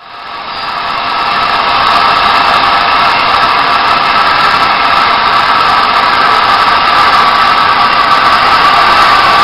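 Steady, loud hiss of steam from the Peppercorn A1 Pacific steam locomotive 60163 Tornado, rising over the first couple of seconds and then holding even, with no exhaust beats.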